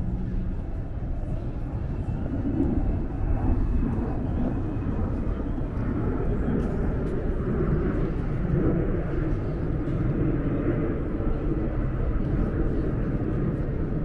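Busy urban outdoor ambience: a steady low rumble with indistinct chatter of passers-by.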